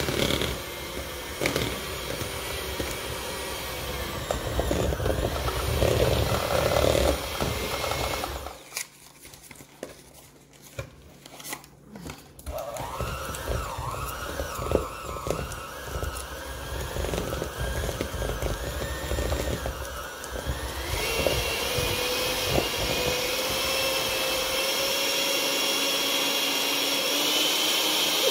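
Electric mixer running as it beats butter and cream cheese into icing; it stops for a few seconds about nine seconds in, then starts again, its pitch climbing slowly near the end.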